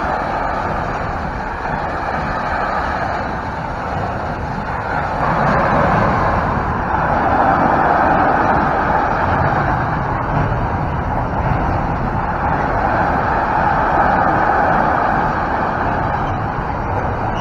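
Container freight train's wagons rolling past at speed: a steady, continuous noise of wheels on the rails that grows louder about five seconds in.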